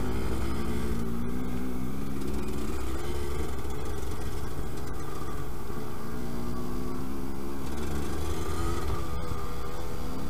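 Yamaha DT125 YPVS single-cylinder two-stroke engine running as the trail bike rides along, its revs rising and falling a few times, with a low rumble of wind and riding noise underneath.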